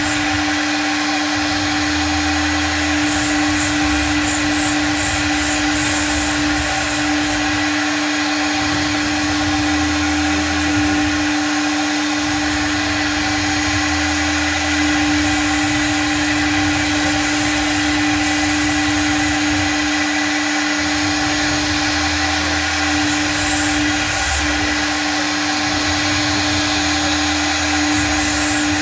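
CNC router spindle running with a steady high whine while its bit cuts into a sheet, over a low hum that comes and goes every few seconds.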